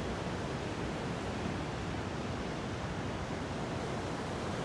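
Steady rush of water pouring from a dishwasher's sink air gap into the sink as the Bosch dishwasher pumps out. The flow means the clog in the air gap has been cleared and the machine drains again.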